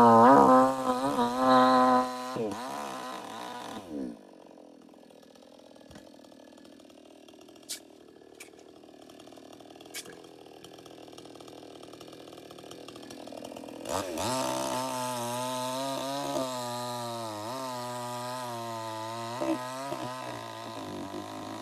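Chainsaw running at high revs, then falling off over the first few seconds to a faint low running with a few clicks. About two-thirds of the way in it is revved up again and runs with a wavering pitch until it cuts off near the end.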